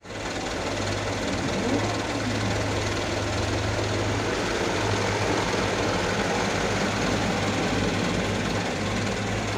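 Heavy diesel engine of construction machinery running steadily at a constant low hum.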